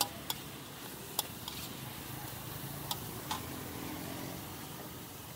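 A metal ladle clinking and scraping against a steel wok as noodles are stir-fried: half a dozen sharp, irregular clinks over a steady hiss.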